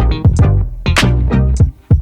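Background music: a funky groove with a steady beat of drum-machine hits, bass and plucked guitar notes.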